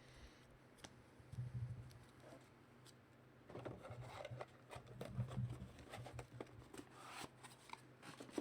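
Faint rustling and small clicks of trading-card packs and cards being handled.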